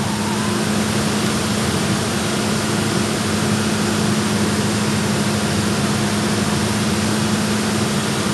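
HHO (oxyhydrogen) torch flame hissing steadily, with a steady low hum underneath.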